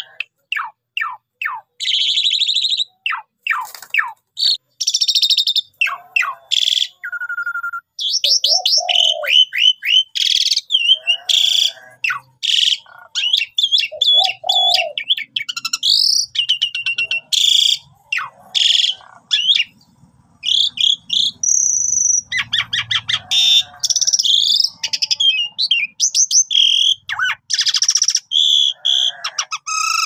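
Asian pied starling (jalak suren) in full, continuous song: quick runs of repeated notes, rising and falling whistles and harsher chattering calls, phrase after phrase with short pauses.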